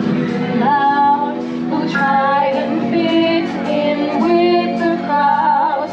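Music with a woman singing over held instrumental notes, the melody moving in sung phrases of about a second each.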